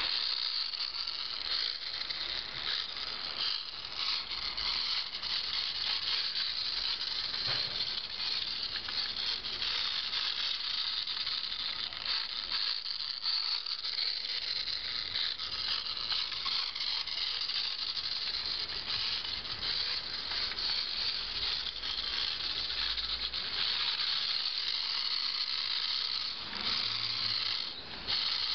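Toy radio-controlled Formula 1 car's small electric motor and plastic gearbox running, a continuous high whirring rattle.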